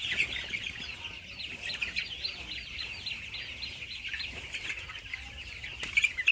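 Chickens calling: a dense, continuous chorus of many short, high peeping calls overlapping one another, with a couple of louder sharp sounds near the end.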